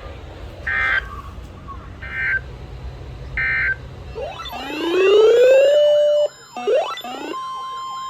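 Emergency Alert System broadcast on NOAA Weather Radio: three short bursts of the digital SAME header tones mark the start of a new warning. A rising siren-like wail follows, and about seven seconds in the steady 1050 Hz weather radio alert tone begins.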